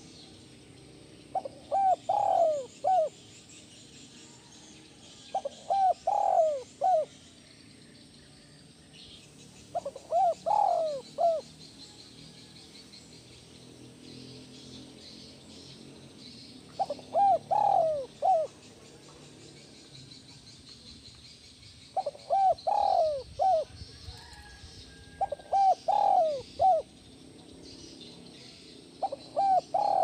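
Spotted dove (tekukur) cooing: its multi-note coo phrase is repeated seven times, a few seconds apart, each phrase lasting about a second and a half.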